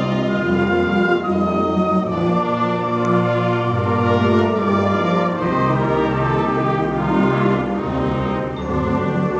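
School concert band of woodwinds and brass playing a slow passage of held chords that change every second or two, with low brass underneath.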